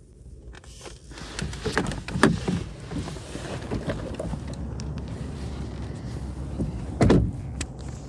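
People getting up and moving off: handling and shuffling noises with scattered knocks and a louder thump about seven seconds in, over a steady rushing noise.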